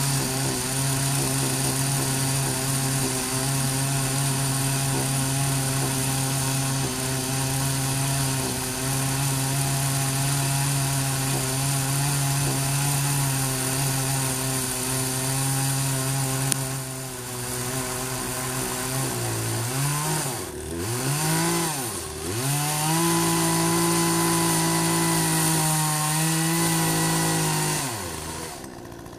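Poulan 18-inch two-stroke gas chainsaw running at full throttle, cutting into a tree stump. About two-thirds in the engine note dips sharply twice and comes back up, holds steady again, then drops off just before the end.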